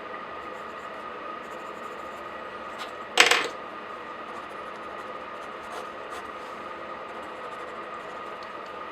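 A single sharp clatter of a small hard object on a desk about three seconds in, with a few faint clicks around it, over a steady hiss with a light hum.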